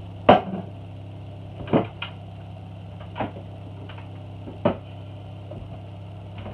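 Pots and pans knocking and clattering in a kitchen cupboard as a cooking pot is taken out, about six separate knocks with the loudest at the start. A steady low hum runs underneath.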